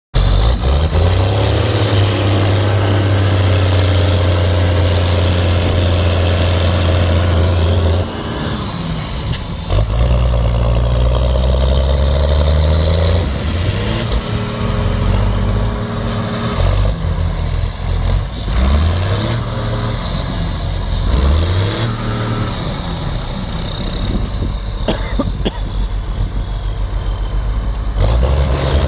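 Heavy tractor diesel engine running hard under load, straining to pull a trailer sunk in soft ground. It holds steady, drops about eight seconds in, then picks up again with several short rises in revs.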